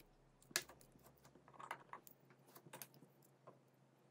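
A handful of faint clicks and taps from a smartphone mainboard being fitted by hand into the phone's frame.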